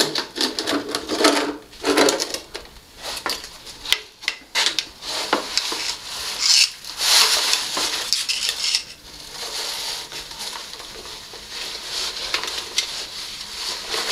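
Metal snake hook clinking and scraping on a tiled floor, mixed with the rustling of a cloth snake bag on its hoop being worked over the tiles: irregular scrapes, rustles and light clicks.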